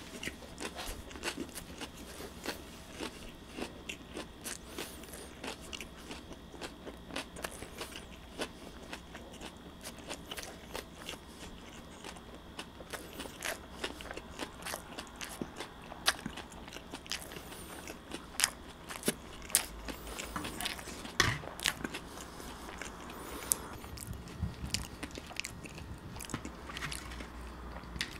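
Close-miked chewing of a mouthful of bread, with many small wet mouth clicks and crunches that grow thicker and louder in the second half.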